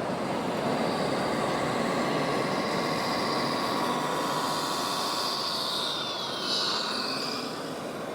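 Whine of small electric motors in radio-controlled model construction machines, several steady high tones, one of them falling in pitch near the end as a motor slows, over a steady hall din.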